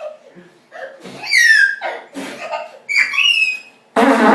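A toddler's high-pitched squealing laughter, twice, then near the end a loud buzzing fart noise blown with the lips.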